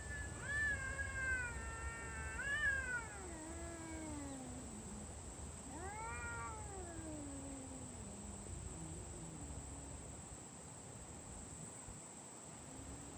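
Cat giving two long, drawn-out meows. The first wavers for about four seconds and slides down in pitch at the end; the second, about six seconds in, rises and then falls.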